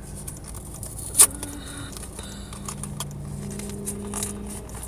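Small hard pieces clinking and packaging rustling as blind-box figures are dug out by hand, with one sharp click about a second in, over a low steady hum.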